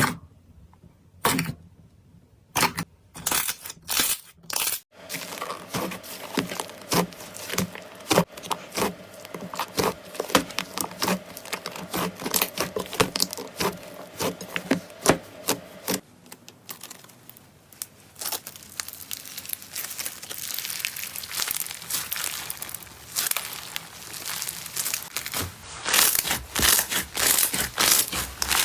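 Slime being pressed and pulled by hand, crackling and popping: a few separate sharp snaps at first, then dense continuous crackling. Partway through the crackle changes abruptly and carries on in a different texture.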